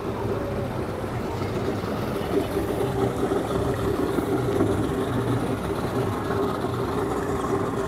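Boat engine running at low speed, a steady drone.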